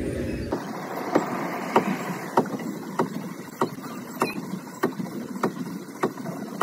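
Theme-park ride boat moving along with a regular train-like clacking, about one sharp click every 0.6 seconds. A low rumble under it drops away about half a second in.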